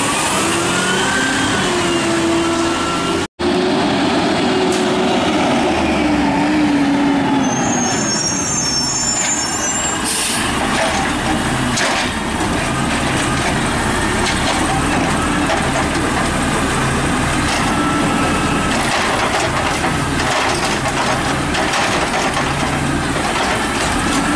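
Automated side-loader garbage trucks at work: engine running with hydraulic whine rising and falling as the arm cycles. The first is a CNG Peterbilt 320 with a Scorpion body; later comes a diesel Peterbilt 320 with an Amrep body, lifting a cart.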